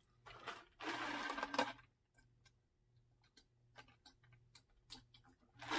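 A man drinking from a glass mug in long swallows. A breathy slurp comes about a second in, then a string of quiet clicking gulps, and a loud breath out at the very end.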